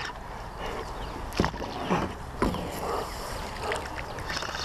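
Water lapping and swishing against a plastic kayak hull as the kayak is pulled along by a hooked fish, with a steady low wind rumble on the microphone. A few short knocks come about one and a half, two and two and a half seconds in.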